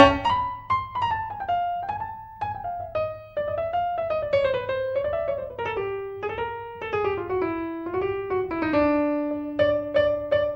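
Piano music: a melody that steps downward in pitch over several seconds, then a held low note under a run of repeated short strikes near the end.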